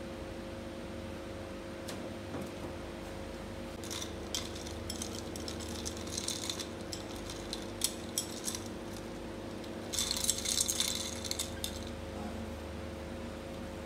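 Ice cubes clinking against a tall glass as iced milk coffee is stirred with a straw: scattered clinks about four seconds in, then a busier run of clinking near ten seconds, over a steady faint hum.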